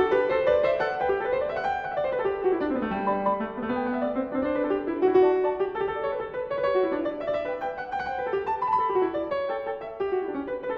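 Background piano music: a steady stream of quick notes running up and down in flowing phrases.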